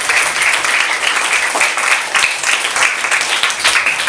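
A class of students applauding together: steady, dense clapping from many hands.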